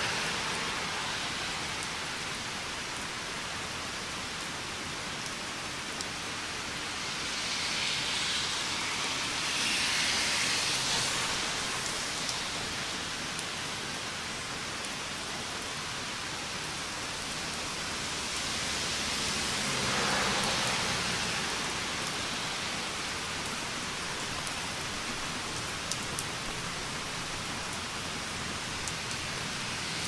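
Steady rain, an even hiss with a few light ticks of drops, that swells louder twice: once about eight to eleven seconds in and again about twenty seconds in.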